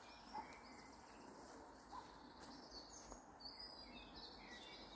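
Faint birdsong over near silence: a few short, high chirps, mostly in the second half.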